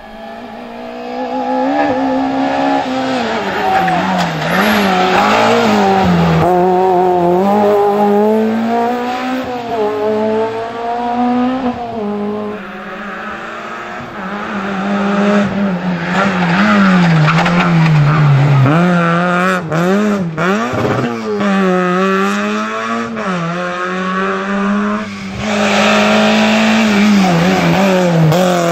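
Rally car engines run hard on a special stage, their note climbing and dropping again and again through acceleration, gear changes and lifts for corners.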